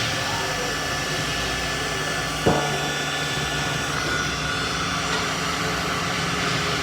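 Heat gun blowing steadily while shrinking heat-shrink tubing over a Cat6 cable end, with a single sharp click about two and a half seconds in.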